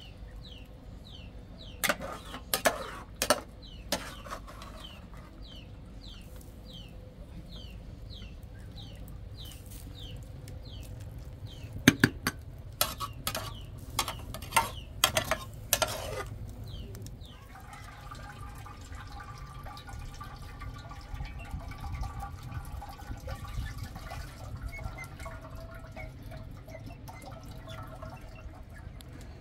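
Metal ladle stirring soup and clinking against a metal cooking pot, in two spells of sharp knocks. Through the first third a bird calls over and over with short falling chirps, about two a second.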